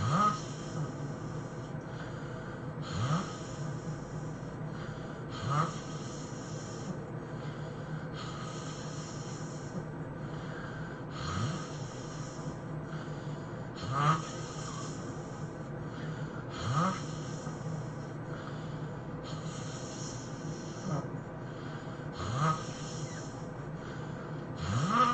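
A man snoring in a regular rhythm, one snore about every three seconds, each rising in pitch, with hissing breaths between them over a steady low hum.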